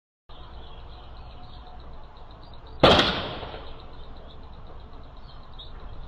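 A single distant rifle shot about three seconds in, sharp, with an echo trailing off over about a second. It is picked up through a home security camera's microphone over a steady background hiss.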